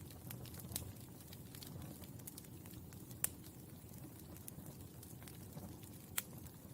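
Burning charcoal crackling: scattered small pops and ticks over a soft low rumble, with a few sharper cracks standing out, about a second in, about halfway through and near the end.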